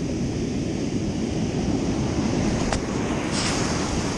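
Surf breaking and washing up the beach, with wind rumbling on the microphone. A single short click sounds a little past halfway.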